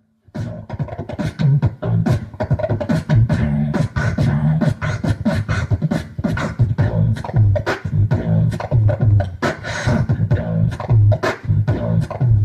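Outro music with a busy percussive beat over a steady bass line.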